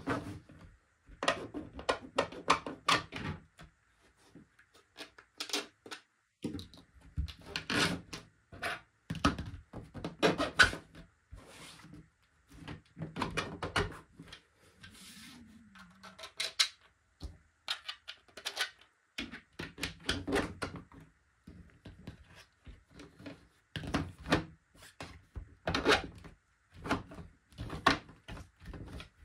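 3D-printed plastic track tiles being handled on a tabletop: irregular clusters of clacks, knocks and scraping as the pieces are pulled apart, set down and fitted back together, with short pauses between.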